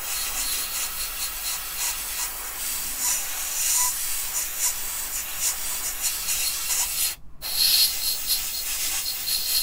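Gravity-feed airbrush spraying paint in a steady hiss, stopping briefly about seven seconds in and starting again as the trigger is released and pressed.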